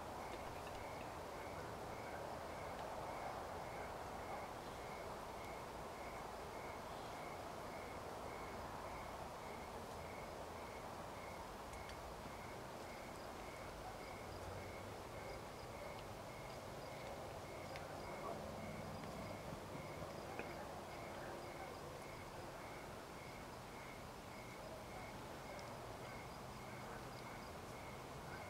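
Quiet evening field ambience: a single insect chirping on one high note, evenly about three times every two seconds, over a low steady hiss.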